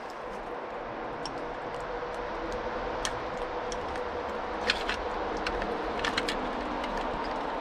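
Liquid-fuel camp stove hissing as pressurised fuel flows from its red fuel bottle, with a faint whistle; the hiss grows slowly louder. A few light clicks are scattered through it.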